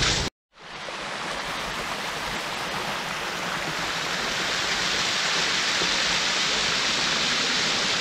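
Water of a small waterfall pouring and splashing over layered rock in a steady rush. The sound cuts out completely for a moment just after the start, then fades back in and holds steady.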